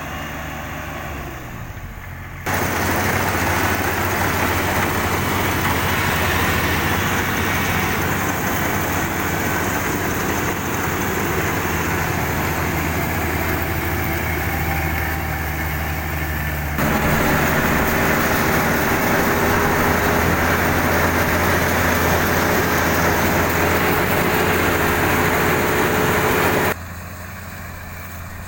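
Kubota DC-35 combine harvester running steadily, engine and machinery together. The sound jumps louder suddenly a couple of seconds in, louder again past halfway with a faint steady whine, and drops back sharply near the end.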